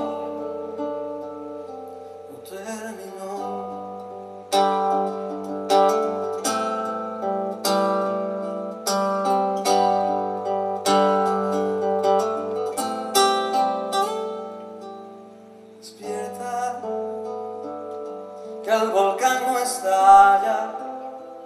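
Acoustic guitar playing an instrumental passage of a trova song, a melody of single plucked notes that ring out, with busier passages near the start and near the end.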